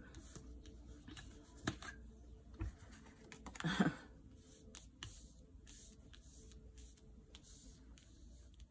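Tarot cards being drawn from the deck and laid on a cloth-covered table: faint taps and slides, with one louder swish about four seconds in.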